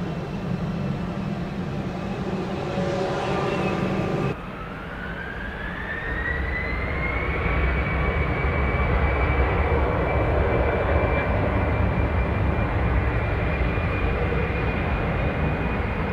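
Embraer regional jets' twin turbofan engines. For the first four seconds an Embraer E190 taxis at low power with a low hum. After an abrupt cut, an Embraer jet's engines spool up: a whine rises in pitch over a few seconds and then holds steady as a deep rumble builds, the sound of takeoff power being set.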